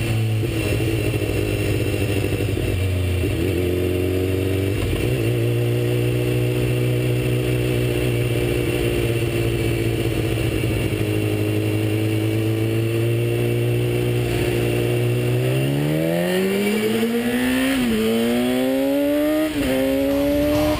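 BMW S1000R sportbike's inline-four engine running at a steady speed. Near the end it revs up hard under acceleration, its pitch rising in steps with two short dips as it shifts up through the gears.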